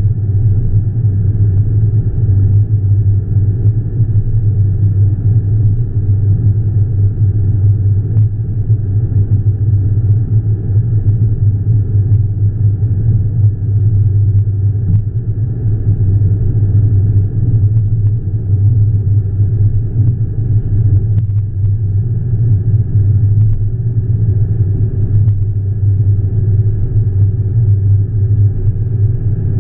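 Steady low rumble of a car driving at highway speed, heard from inside the cabin.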